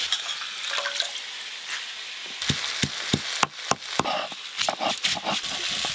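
Vegetables sizzling lightly in a pot while they are stirred. From about halfway, a run of heavy thuds, roughly three a second: a hand-held grinding stone pounding green leaves on a stone slab (shil-nora).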